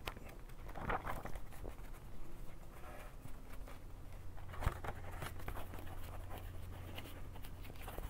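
Pages of a book being leafed through and handled: soft paper rustles and light clicks, over a faint steady low hum.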